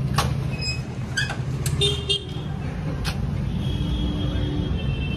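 Traffic noise: a steady low rumble of passing vehicles, with vehicle horns sounding, a short honk about two seconds in and a longer one from about three and a half seconds.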